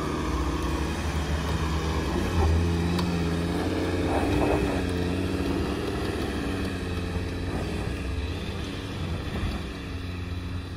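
Volkswagen Touareg's engine working hard under load as the SUV climbs a steep grassy slope, the revs rising and falling as the driver works the throttle.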